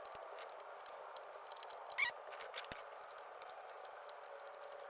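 Faint scattered clicks and light scrapes of a small screwdriver working at screws behind the dash trim, with a short squeak about two seconds in.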